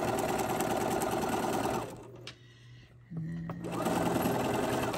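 Electric sewing machine stitching a quarter-inch seam through fabric. It stops a little under two seconds in, a few light clicks follow in the pause, and it starts stitching again about a second later.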